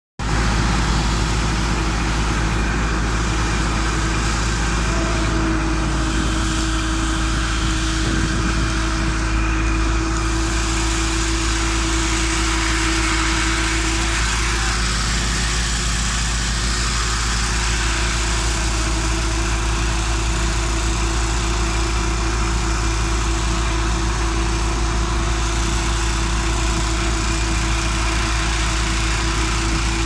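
Heavy construction machinery running steadily: a continuous engine drone with a steady hum, with no pauses or changes in load.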